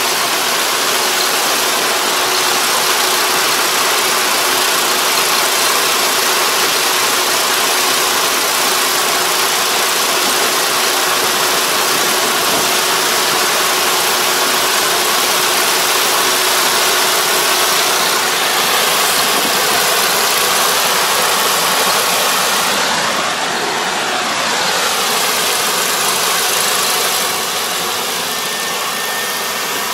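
Combine harvester running as it cuts and threshes rice, a steady dense mechanical noise that eases off slightly near the end.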